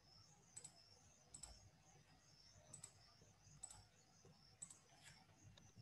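Near silence with about half a dozen faint, scattered computer clicks, as a label is placed on an on-screen drawing.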